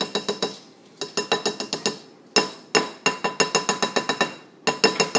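A measuring cup rapped against a mixing bowl to knock out a heaped quarter cup of whipping cream. It makes rapid clinking taps, about six or seven a second, in several short runs, and each tap leaves a brief ringing tone.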